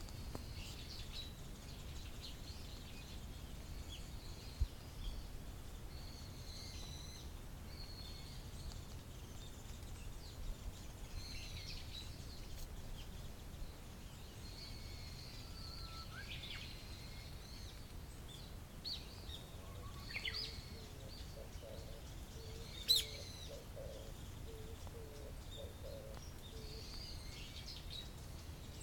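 Japanese bush warbler singing its 'hoo-hokekyo' song several times, each a low held whistle followed by a quick higher flourish, by now well practised according to the owner, with other short chirps and a steady low background rumble.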